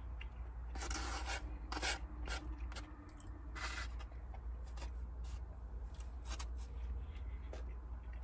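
Eating noises: a utensil scraping and rustling through food in a takeout container, in several short scratchy bursts over a low steady hum.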